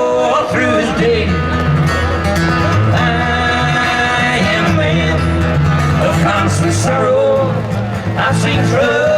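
A bluegrass band playing live, with guitar and bass. A sung line can be heard near the start and again near the end.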